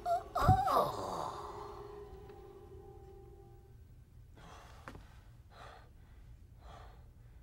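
A man's short, strangled cry falling steeply in pitch about half a second in, followed by a man's heavy breathing: four loud breaths about a second apart in the second half.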